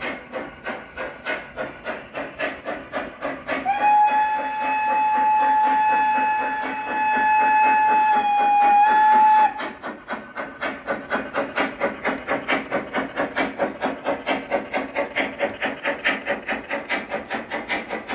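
LGB model steam locomotive's sound unit chuffing in a quick, even rhythm, with one long steady whistle blast of about six seconds starting about four seconds in.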